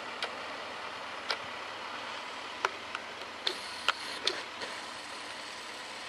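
Zetor 9641 tractor ploughing at a distance, heard as a steady drone and hiss. Over it, a run of sharp clicks and knocks falls in the middle, the loudest about two and a half and four seconds in.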